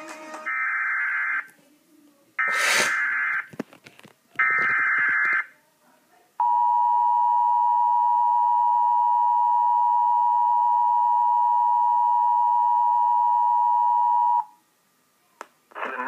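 Emergency Alert System activation played through laptop speakers: three buzzy one-second bursts of SAME header data, then a steady two-note attention tone held for about eight seconds, heralding a severe thunderstorm warning. A sharp click comes during the second burst.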